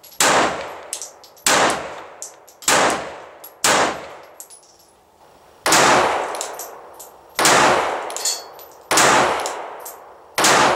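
Glock 42 .380 ACP pistol fired seven times in slow, aimed shots about one to two seconds apart, each shot trailing off in a ringing echo. Light metallic clinks sound between the shots.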